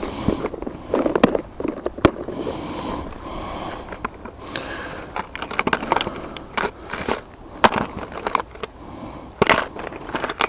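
Irregular clicking and clinking of metal lures against plastic as hands rummage through a plastic tackle box of spinnerbaits.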